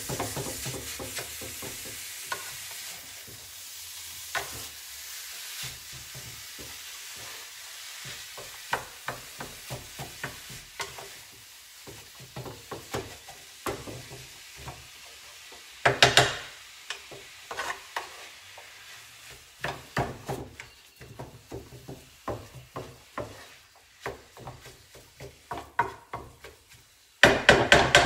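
Pork mince sizzling in a non-stick frying pan while a wooden spatula stirs and breaks it up, clicking and knocking against the pan. The sizzle fades after the first few seconds. Near the end comes a quick run of loud knocks as the spatula chops at the meat.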